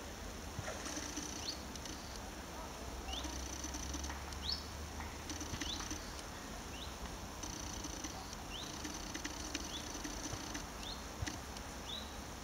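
Forest ambience: short rising chirps repeat every second or so, a high, steady buzz comes and goes, and a low rumble runs underneath, with a few faint clicks.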